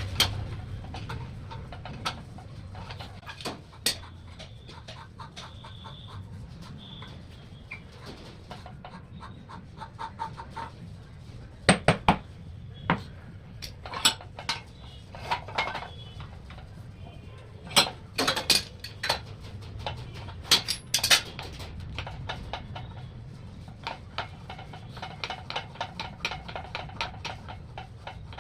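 Irregular metallic clinks and knocks of tools and metal parts being handled, as during work on a needle vibrator rod, over a low steady background hum.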